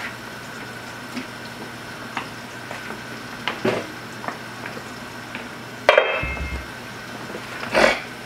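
Kitchen clatter: small knocks and clinks of cookware over a steady hum. About six seconds in a stainless steel pot lid is set down with a sharp clank that rings briefly, and a dull knock follows near the end.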